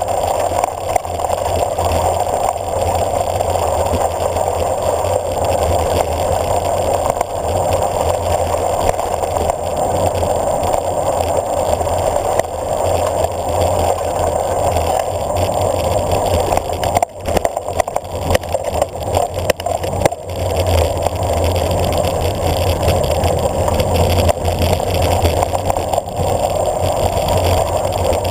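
Wind rushing over a handlebar-mounted camera's microphone as a bicycle coasts downhill, with the tyres rumbling on a dirt and gravel road. The noise is loud and steady, easing briefly twice about two-thirds of the way through.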